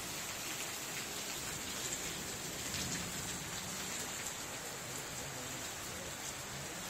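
Heavy rain pouring steadily: an even hiss of falling drops.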